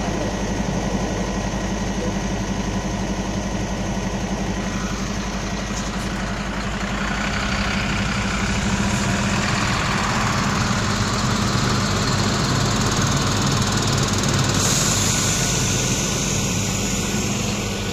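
Diesel engine of a Mercedes-Benz garbage truck running under load as it is towed out of a muddy field, steady at first and getting louder from about seven seconds in as the truck moves past.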